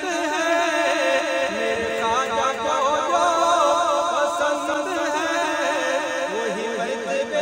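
Man singing a manqabat, a devotional song in praise of a Sufi saint, in long wavering, ornamented vocal lines that bend up and down in pitch.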